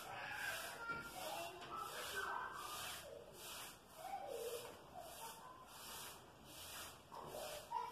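A damp sponge rubbing a thinned gray putty mix across a plastered wall in back-and-forth strokes, about two strokes a second, to build a mottled burnt-cement finish.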